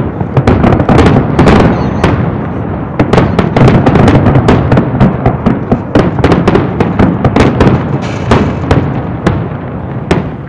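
Fireworks display: aerial shells bursting in a dense, rapid string of sharp bangs over a continuous rumble, easing off slightly near the end.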